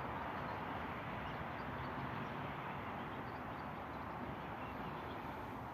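Steady outdoor background noise, an even hiss-like wash with no distinct events, and a few faint high chirps in it.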